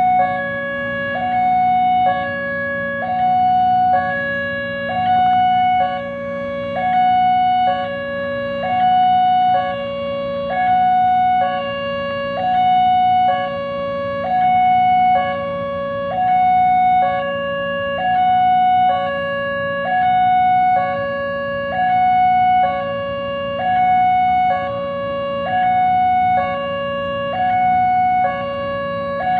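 Railroad level-crossing warning siren sounding continuously, alternating evenly between a higher and a lower tone about once a second. A steady low hum runs beneath it.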